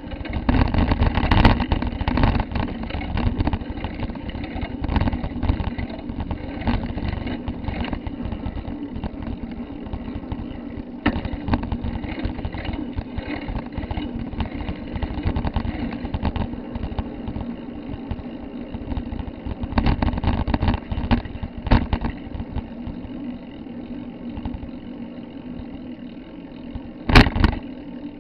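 Continuous rumble and rattle of riding along a street, with a steady low hum and many small knocks from bumps; a loud knock comes near the end.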